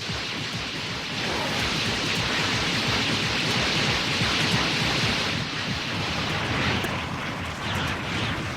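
Anime sound effect for the Mass Production Evangelions: a dense rushing noise that starts suddenly, swells over the first few seconds, then eases back and thins out toward the end.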